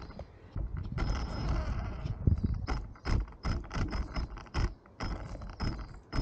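Radio-controlled car's motor and gears whirring in stop-start spurts as it crawls slowly over rough concrete: one longer run about a second in, then short bursts about two a second.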